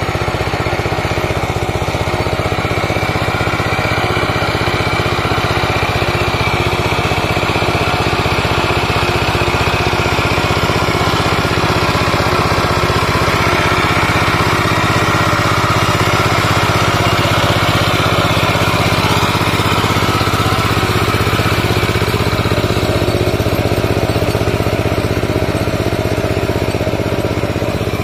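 Two-wheel hand tractor (power tiller) with a single-cylinder diesel engine, running steadily under load while tilling wet paddy mud.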